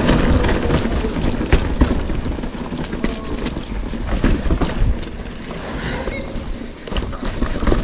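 Full-suspension mountain bike riding down a dirt trail: wind rushing over the microphone and tyres rolling on dirt, with frequent sharp clicks and knocks from the bike over bumps. The sound eases off a little a few seconds in, then picks up again near the end.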